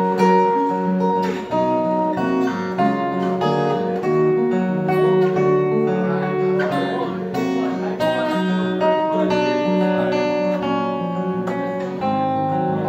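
Acoustic guitar played live without singing, an instrumental passage of picked notes and chords that runs on without a break.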